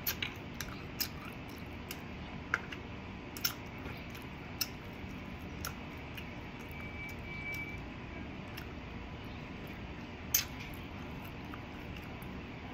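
Eating sounds from a meal of fried adobo: chewing with scattered short crisp crunches and clicks, the loudest about ten seconds in.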